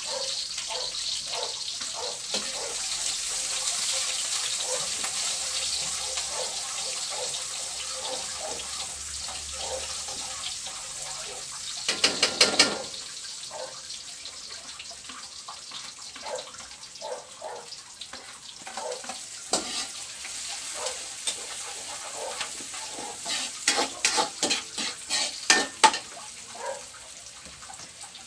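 Food frying in oil in a pan, with a steady sizzling hiss that is loudest in the first half. A cooking utensil clatters and scrapes against the pan in a quick flurry about twelve seconds in, and again in several strokes near the end.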